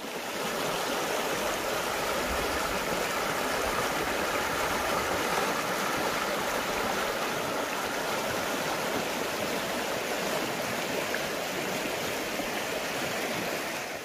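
A clear mountain stream running over a stony bed and through a small rapid: a steady wash of flowing water.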